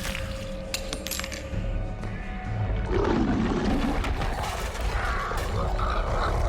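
Film soundtrack: dramatic music under sharp metallic clinks and crashes, then a low beastly growl from a lycan (werewolf) starting about three seconds in and building.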